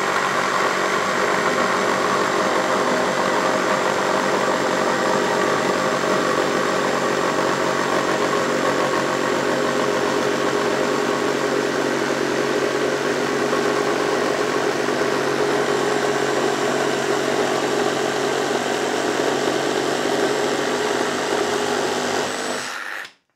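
Cordless one-handed reciprocating saws running steadily at full speed, their blades sawing down through a wooden board under a hanging 5-pound weight. The running stops abruptly near the end.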